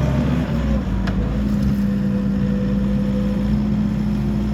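Skid steer engine running steadily, its pitch settling and holding about a second in.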